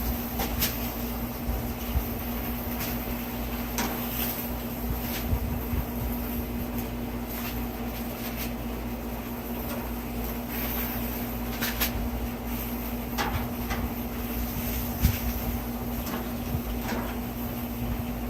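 Metal tongs clicking and knocking against a gas grill's grate as chicken wings are lifted off, a scattered handful of sharp clicks over a steady low hum.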